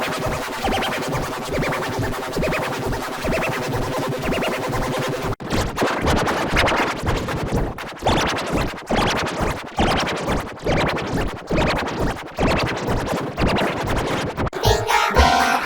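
Sparta-remix-style electronic music built from chopped, stuttered samples with scratch-like effects. It breaks off suddenly about five seconds in and restarts as a beat of evenly repeated chopped hits, turning to a faster stutter near the end.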